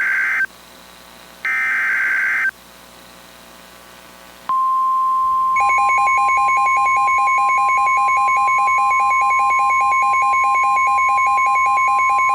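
NOAA Weather Radio SAME data header: the tail of one harsh, screeching data burst, then about a second and a half in a second one-second burst, with radio hiss between them. About four and a half seconds in, the steady single-pitch warning alarm tone starts, which signals that a warning follows. A second later a fast pulsing two-pitch beeping joins it.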